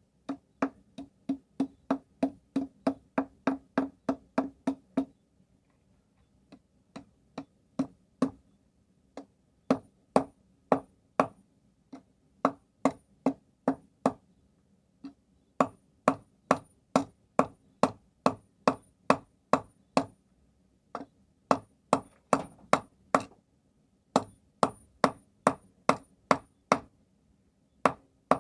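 Hand hammer blows on hot steel over a stake anvil while forging a bodkin arrowhead. The strikes come about three a second in runs of several, with short pauses between runs, and many carry a thin, high ring.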